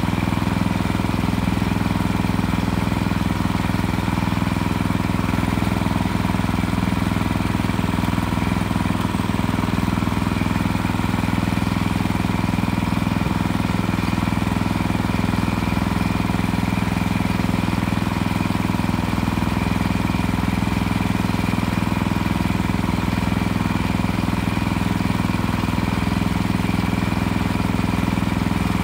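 Small gas engine on a portable circular-blade sawmill running steadily, its speed unchanging throughout.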